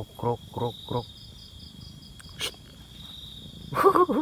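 Crickets trilling steadily in one high, even tone. Near the end a louder, short wavering call cuts in.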